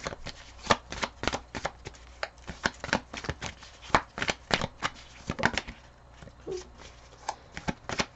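Tarot deck being shuffled by hand: a run of quick, irregular card clicks that thin out over the last couple of seconds.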